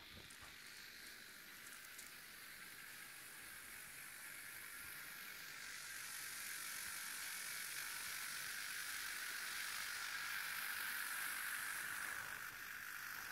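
Rivarossi H0 scale 'sogliola' model running on the track: a steady high whirring hiss from its small electric motor and wheels on the rails, growing louder as it comes closer.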